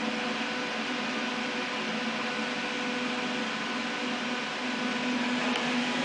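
Electric fan running steadily, a whir with a low hum and airy hiss, drawing air up out of the top of a glass cabinet; it gets slightly louder near the end.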